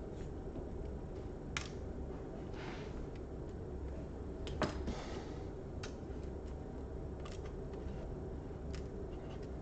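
A few scattered light clicks and taps of small laptop parts being handled and fitted, the sharpest about four and a half seconds in, with a brief rustle or two, over a steady low hum.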